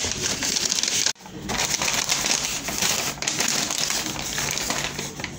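Takeaway paper packaging rustling and crinkling as it is opened and handled, with a sudden break about a second in.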